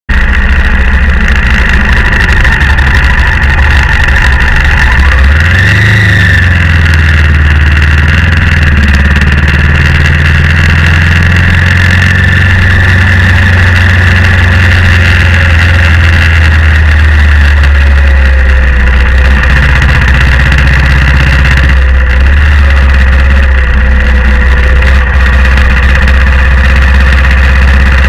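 Loud BMW G650X single-cylinder motorcycle engine running on the move; its pitch rises about five seconds in as the bike accelerates, then holds steady.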